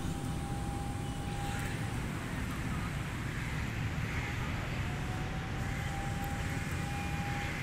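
Steady low outdoor background rumble. A faint thin whine fades out about two seconds in and returns for the last few seconds.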